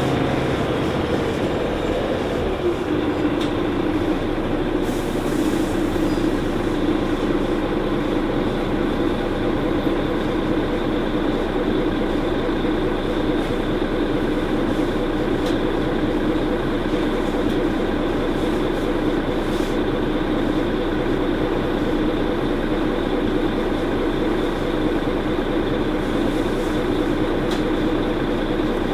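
Mercedes-Benz Citaro C2 G articulated bus with a ZF Ecolife automatic gearbox under way, a continuous drivetrain drone with road noise. Its pitch drops slightly about two seconds in, then holds steady.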